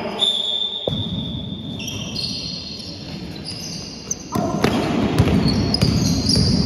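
Basketball bouncing on a sports-hall floor during play, with players' footsteps; the activity gets louder about four seconds in as a player dribbles up the court.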